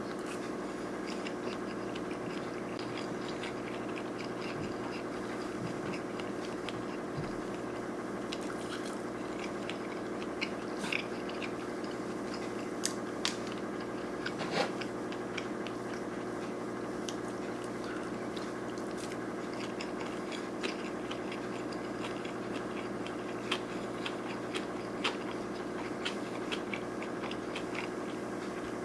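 Close-up chewing and biting of sushi rolls, with small wet mouth clicks scattered throughout, over a steady low hum.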